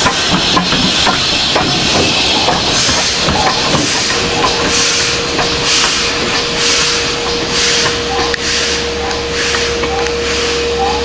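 GWR 4575 class small prairie tank engine 5542 pulling away under steam: hissing steam with a run of rhythmic exhaust beats about every half second.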